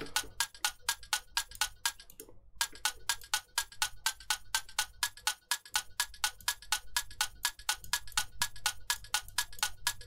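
Looped tick-tock built from two short, dry percussion samples in a DAW, one pitched up and one pitched down, panned hard left and right and alternating at about four and a half hits a second to imitate a clock. Playback stops briefly about two seconds in, then starts again.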